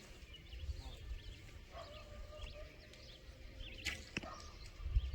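Birds chirping faintly over a low outdoor rumble, with two sharp clicks about four seconds in.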